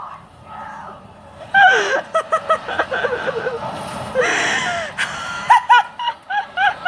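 A person's voice in a rapid run of short bursts, starting suddenly about a second and a half in, with a longer noisy burst a little past the middle.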